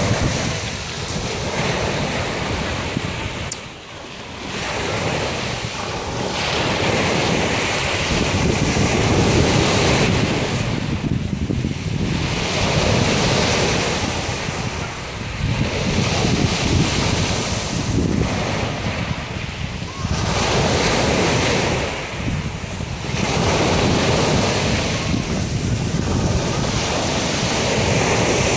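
Sea waves breaking on a pebble beach and washing up the shingle, the surf swelling and falling back every few seconds, with wind buffeting the microphone.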